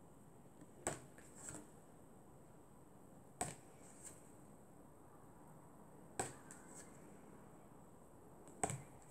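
Flashcards handled one at a time: four sharp card clicks about every two and a half seconds, each followed by a softer one, as cards are flicked from the deck and held up. Faint room tone with a steady high whine underneath.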